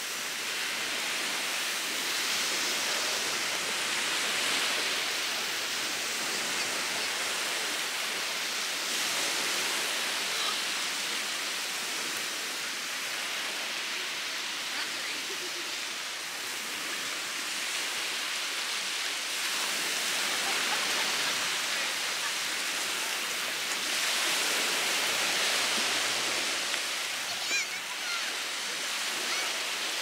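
Steady wash of surf on a sandy beach, swelling and easing slowly as the waves come in.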